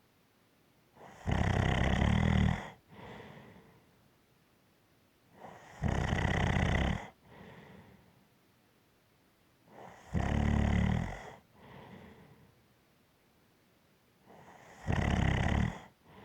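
Rhythmic snoring: four loud, rasping snores about every four and a half seconds, each followed about a second later by a fainter, shorter breath sound.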